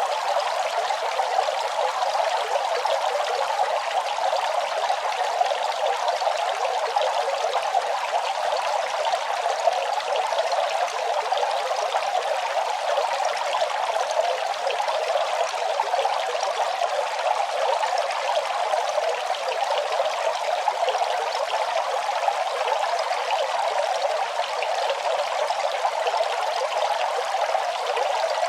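Running water flowing steadily and evenly, with no pauses or changes.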